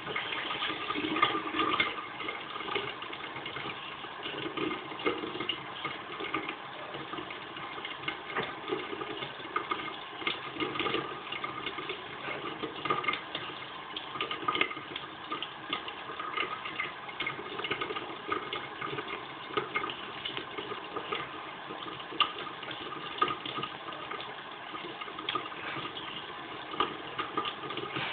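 Tap water running steadily into a sink, with irregular splashes.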